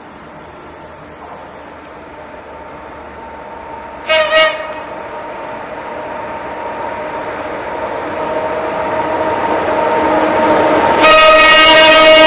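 Electric locomotive of a Vest Trans Rail freight train approaching through a station. It sounds two short horn blasts about four seconds in, then the rumble of the train grows louder as it nears. A long, loud horn blast starts about eleven seconds in.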